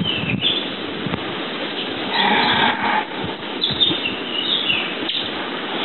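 Small forest birds singing short high phrases through a steady hiss of background noise, with a couple of brief knocks.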